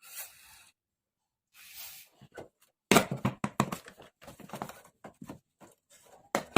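Hand work on rusty motorcycle parts: two short scraping rasps, then from about three seconds in a quick, irregular run of knocks and clatters.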